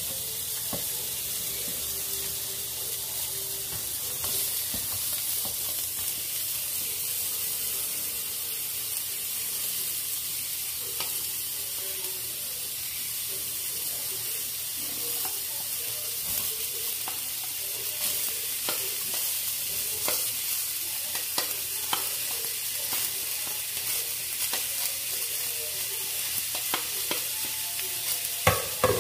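Carrot slices sautéing in hot oil in a non-stick frying pan, a steady sizzle. A spatula scrapes and knocks against the pan, more often in the second half, with a few louder knocks near the end.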